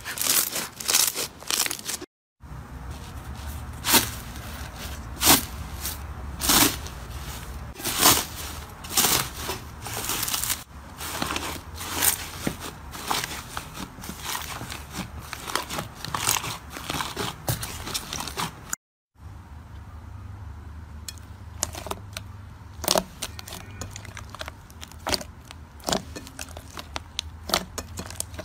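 Slime being squeezed, pulled and pressed by hand, giving a run of crackling clicks and pops. The sound stops briefly twice as the clips change: first bead-filled slime, then a thick slime pulled in a plastic tub, then a soft lilac slime pressed with the fingers.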